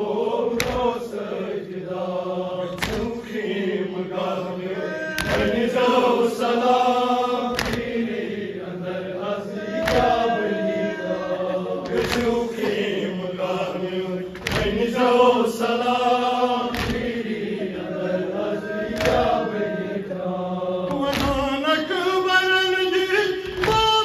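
A Shia nauha lament chanted by a male reciter, with a group of men chanting along. Sharp chest-beating (matam) strikes keep time about every two seconds.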